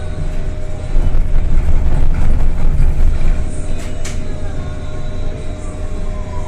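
CRRC C10 battery-electric city bus running, with a loud low rumble and a steady motor whine; near the end the whine falls slowly in pitch as the bus slows. A single sharp click about four seconds in.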